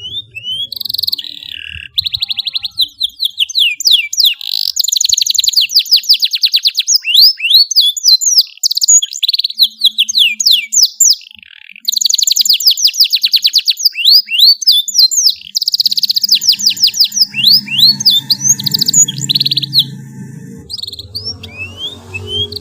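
Young domestic canary singing a long, continuous song of fast trills and quick sweeping whistles, with a brief pause about halfway through.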